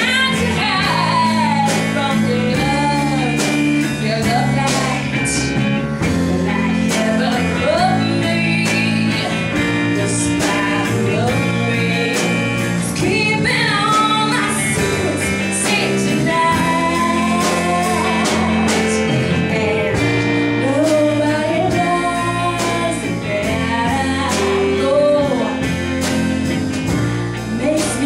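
Live band with a female lead singer singing a melody over electric guitars, drums and keyboard.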